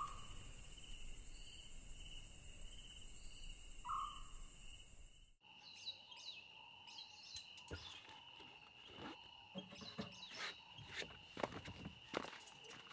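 African scops owl giving its short call twice, about four seconds apart, over a steady high chirring of crickets. About five seconds in, the sound cuts to a quieter night chorus of insects with scattered clicks and chirps.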